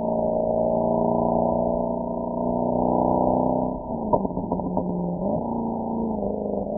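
Mercedes-AMG SL63's V8 engine and exhaust running at a steady cruise. About four seconds in, the revs drop briefly with a few sharp pops from the exhaust, then rise back to the same note.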